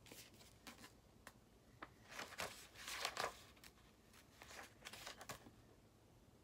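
Pages of a hardcover book being leafed through: a run of soft, faint paper rustles and small clicks, busiest about two to three and a half seconds in, dying away before the end.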